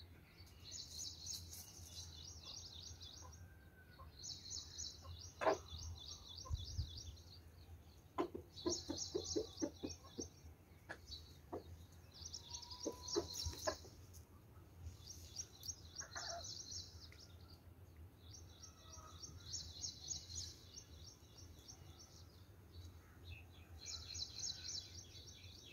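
Free-ranging chickens clucking softly in short runs of low clucks. Behind them, a high, fast chirping comes in bursts of about a second and a half every few seconds.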